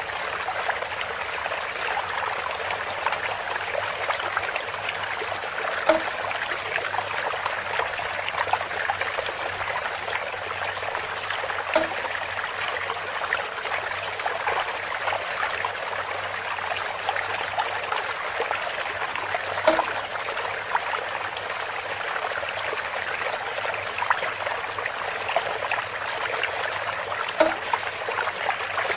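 Water trickling steadily through a bamboo spout. A brief louder drip or tap stands out four times, about every six to eight seconds.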